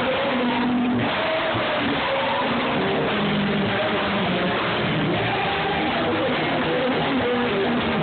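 A congregation singing loudly together over a live band with an electric bass guitar.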